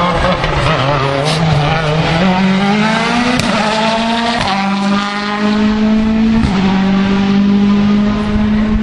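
World Rally Car engine at full throttle as the car accelerates past. The pitch climbs over the first few seconds, then short breaks at quick gear changes, then the engine is held at high revs.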